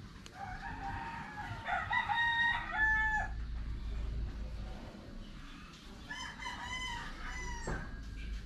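A rooster crowing twice, each crow about three seconds long: the first starts just after the beginning and the second about six seconds in.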